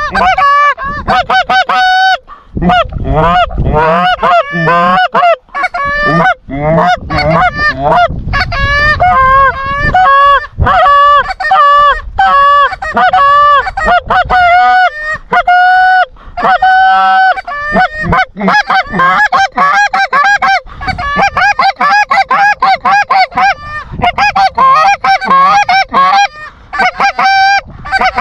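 Goose calls blown fast and hard by hunters: an unbroken stream of short honks and clucks, loud and close, calling to incoming geese.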